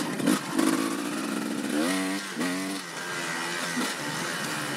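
Dirt bike engine running and revving, its pitch climbing and dropping a couple of times about two seconds in before settling back to a steadier note.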